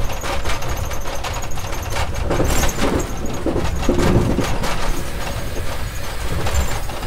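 Inside an Amtrak Keystone Service passenger coach running at speed: a steady rumble of wheels on rail with rapid clicks and knocks. The rattling gets louder in the middle, with a brief squeal about four seconds in.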